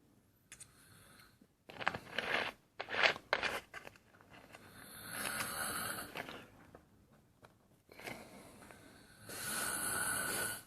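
A man snoring close to the microphone: two long snores about four to five seconds apart, after a run of shorter rasping noises.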